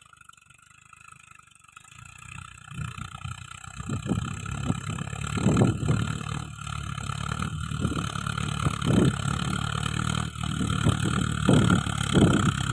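Tractor engine running with a low steady drone that grows louder over the first few seconds, with irregular knocks and clatter on top of it.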